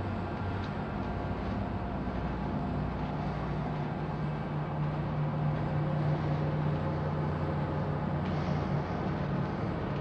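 A steady low mechanical rumble with a droning hum, which grows louder from about three seconds in and eases off near the end.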